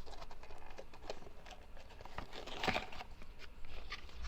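Cardboard being handled and bent by hand: scattered light taps and crinkles, with a louder crinkling scrape a little past halfway.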